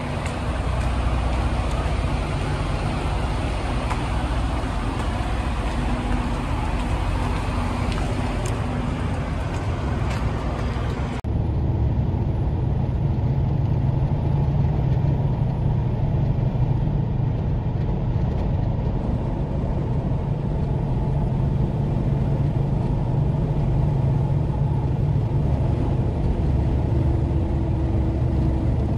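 Semi-truck engine running, heard outside beside the trailer. After a cut about 11 seconds in, a steady low engine-and-road rumble from inside the cab of the red semi-truck cruising at highway speed.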